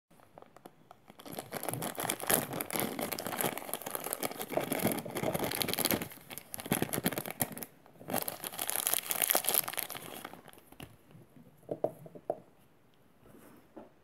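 Clear plastic packaging bag crinkling and rustling as it is handled and opened. It stops briefly twice, then goes quiet, with a few light knocks near the end.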